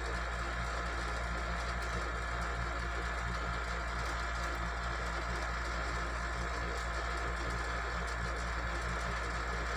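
Steady low mechanical hum that holds an even level throughout, with no clicks or knocks standing out.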